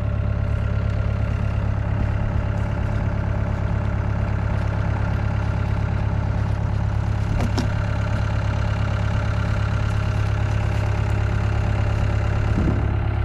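An engine idling steadily, a low even hum with no change in speed, with a single brief knock about seven and a half seconds in.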